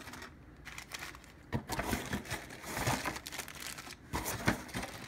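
Clear plastic bags of robot-kit parts crinkling as they are handled, with a few dull knocks as the bagged parts are set down on a wooden tabletop.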